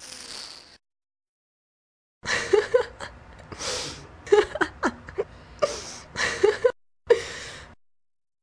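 A woman laughing in breathy bursts: a short breathy exhale at the start, then after a pause a run of laughs over about four seconds, and one more burst near the end.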